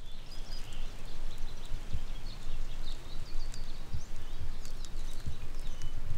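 Outdoor ambience of small birds chirping and twittering over a steady background hiss, with a few low thumps.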